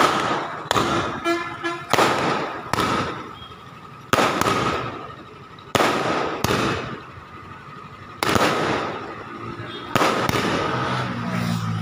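Firecrackers bursting on the road, a string of sharp bangs going off irregularly about one to two seconds apart, each with a short echo.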